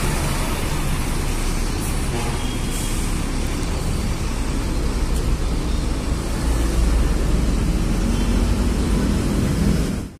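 Mercedes-Benz OH-1626 coach's rear-mounted diesel engine running as the bus pulls away, with a deep rumble over road and traffic noise. The sound cuts off suddenly near the end.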